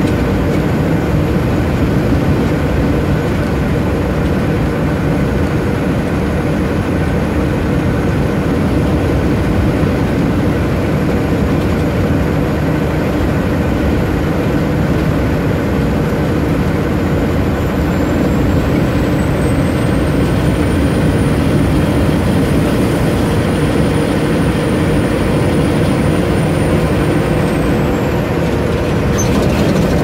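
Semi truck's diesel engine and tyre noise heard from inside the cab at steady highway speed. A thin high whine rises about two-thirds of the way through and falls away near the end.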